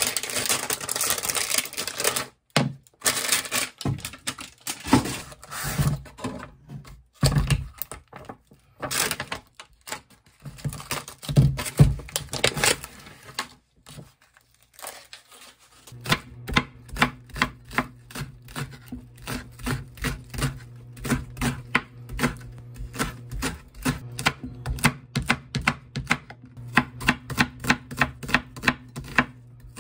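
Plastic food packaging handled with irregular rustles and clatters, then, about halfway through, a kitchen knife chopping vegetables on a wooden cutting board in an even rhythm of about two strokes a second over a low steady hum.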